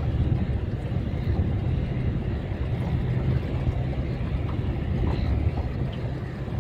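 Steady low rumble of wind and sea noise on a small boat in open swell.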